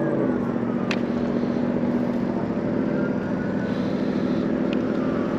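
Steady hum of an electric bike riding along a roadside, with traffic noise behind it. A sharp click sounds about a second in.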